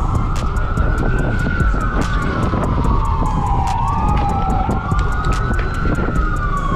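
An emergency vehicle siren wailing, two overlapping tones that each rise quickly and then fall slowly, twice over, with a steady low rumble and rapid ticking underneath.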